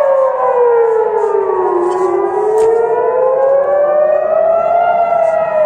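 Civil defense air-raid sirens wailing a rocket warning. Several sirens slowly rise and fall in pitch out of step with each other: the lowest sinks through the first two seconds, climbs until near the end, then starts falling again.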